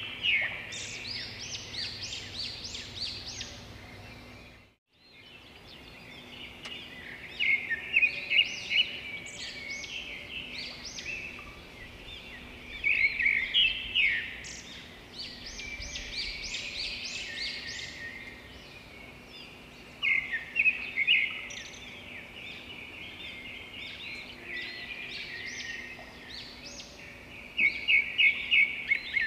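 Bird song: short phrases of quick, high chirps repeating about every six to seven seconds over a faint steady hum.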